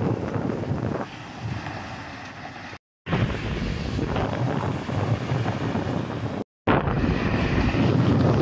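Heavy trucks driving past on a highway: steady tyre and engine noise with wind buffeting the microphone. The sound cuts out for a moment twice, about three seconds in and again after six and a half seconds.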